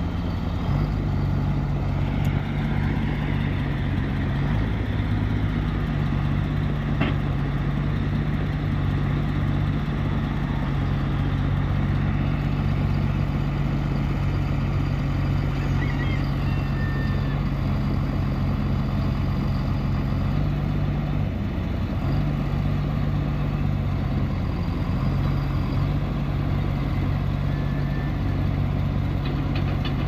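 Komatsu WA470 wheel loader's diesel engine idling steadily, its note shifting slightly in pitch a few times.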